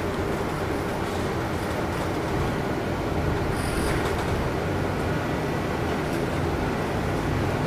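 City bus engine rumbling steadily, heard from inside the passenger cabin, as the bus sits at a stop and then starts to pull away. A brief high hiss comes about four seconds in.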